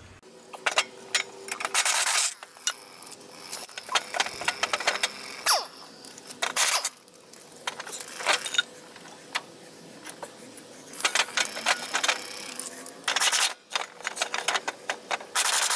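Pneumatic ratchet run in short bursts, a hissing, clattering whir, spinning the blade fasteners off a riding mower's deck, with light metal clinks between the bursts.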